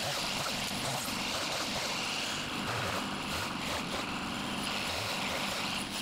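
Gas chainsaw running, its engine speed rising and falling as it cuts out dead saplings and low limbs.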